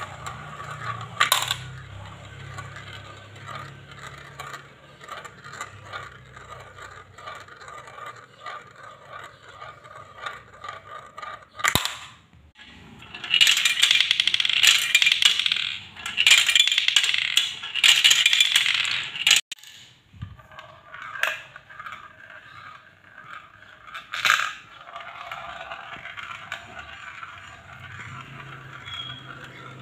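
Small marbles rolling and rattling around clear plastic funnels and dropping through the tubes of a toy marble run, with a few sharp clicks as they hit. In the middle comes a louder stretch of dense clattering lasting about six seconds.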